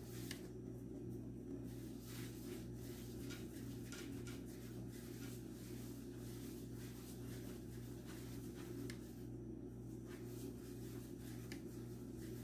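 Hands rolling balls of bread dough on a board: faint, irregular soft rubbing and light taps, over a steady low hum.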